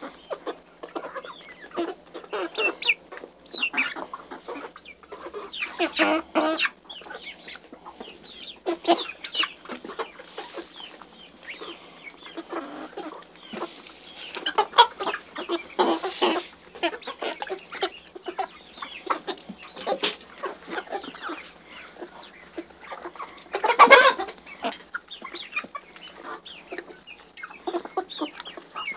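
A flock of young chickens clucking and chirping close up while they peck mealworms, with many quick, irregular pecks and scuffles among the calls.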